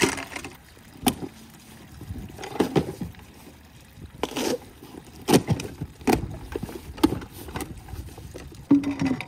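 A cardboard box being handled and opened, with an irregular string of sharp knocks and short scraping rustles of cardboard.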